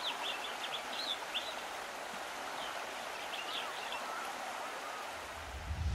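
Outdoor ambience: a steady rushing hiss with birds chirping and calling several times over it. A low rumble swells in near the end.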